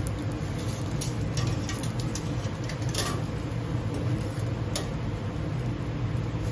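Steady low mechanical hum of a running commercial gas grill and kitchen ventilation, with a few light clicks as bamboo yakitori skewers are turned on the grill's metal rails.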